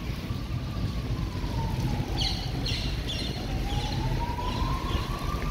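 Emergency vehicle siren wailing, its pitch falling slowly for about three seconds and then rising again, over a steady low rumble. A few short high chirps come in the middle.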